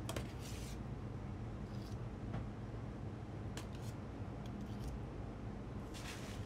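Kitchen background: a steady low hum of equipment with scattered light clicks and scrapes of utensils, a few clustered near the end.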